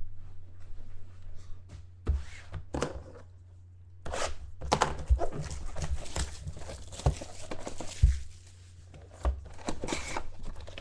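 Plastic shrink-wrap being torn and crinkled as a sealed box of trading cards is opened, in irregular rustling bursts with a few dull knocks of the box being handled, over a steady low hum.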